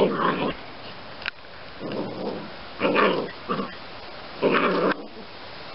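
Two-month-old puppy growling and barking in play, in about five short bursts.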